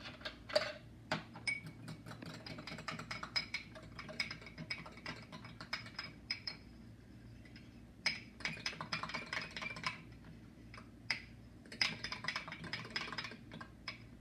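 A metal spoon stirring dry yeast into warm water in a small drinking glass, clinking quickly against the glass in three long runs of rapid ticks with short pauses between them.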